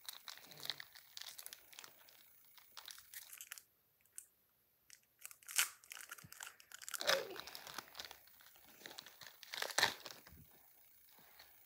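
Pokémon TCG booster pack's foil wrapper crinkling and tearing as it is opened by hand, in irregular crackles. There is a short quiet pause about four seconds in, and the sharpest crackles come near the middle and near the end.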